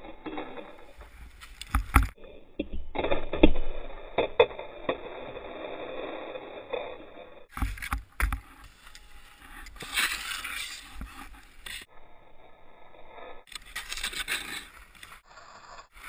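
Skis scraping and sliding over snow, heard from a helmet-mounted camera, with several sharp knocks along the way.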